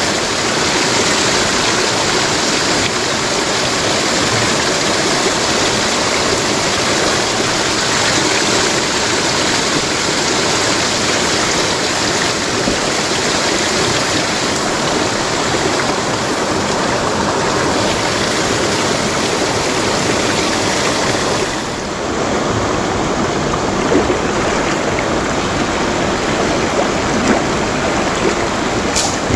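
Steady rush of river water flowing over rocks close by. Even and unbroken, it dips slightly about three quarters of the way through.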